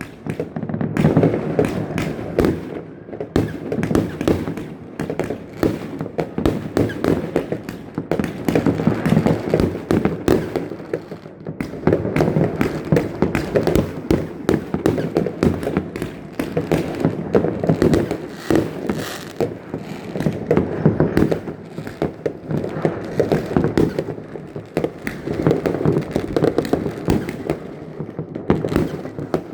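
Fireworks and firecrackers going off in a dense, continuous rapid crackle of many overlapping pops and bangs, swelling and easing in waves.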